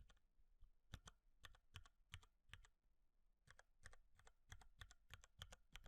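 Typing on an RK TKL 87 mechanical keyboard with Cherry MX Brown switches: faint, irregular keystroke clicks, with a short pause about halfway through.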